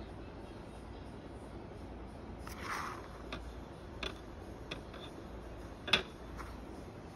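Faint room tone with a few scattered small clicks and taps, one short rustle about two and a half seconds in and the sharpest tap about six seconds in.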